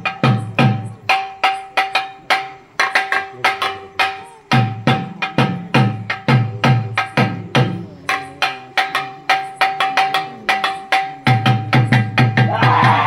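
Festival percussion: a fast run of sharp drum strokes with deep drum beats under them, over a steady held tone. The deep beats drop out for a few seconds twice, about four seconds in and again from about eight to eleven seconds, while the sharp strokes keep going.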